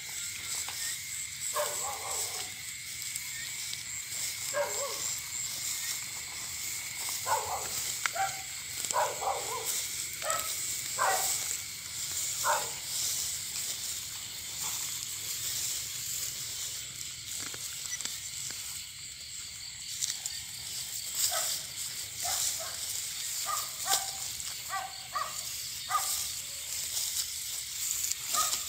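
Night field ambience: a steady, high-pitched chorus of insects, with many short, lower calls scattered through it.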